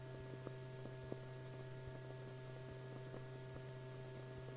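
Steady low hum with a few faint clicks and crackles, one a little louder about a second in: the background noise of an old film soundtrack between narrated lines.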